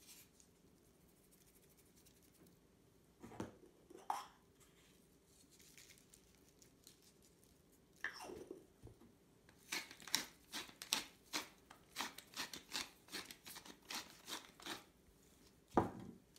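Pepper mill being twisted over the dish: a run of quick crunchy grinding strokes, about three a second, for some five seconds. A few light knocks come before it, and a sharper knock near the end, as things are picked up and set down on the counter.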